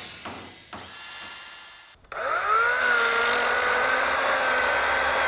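A short intro sound effect with two quick hits, then about two seconds in a Greenworks Commercial 82-volt brushless cordless chainsaw spins up with a rising whine and runs steadily at full speed, cutting through a log.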